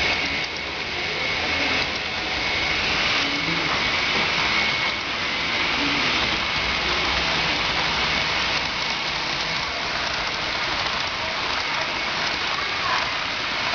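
Model double-stack container train rolling across a girder bridge: a steady, even rushing noise from its wheels on the track, with a faint steady high tone.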